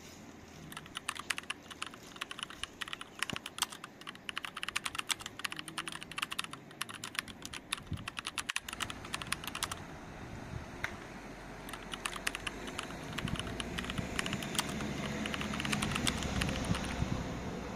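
Computer-keyboard typing sound effect: rapid, uneven keystroke clicks that go along with on-screen text typing itself out. In the second half a steady background noise slowly grows louder under the clicks.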